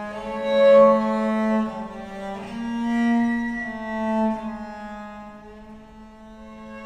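Viola da gamba and violin playing slow, sustained bowed notes together, each note held a second or two, swelling loudest about a second in.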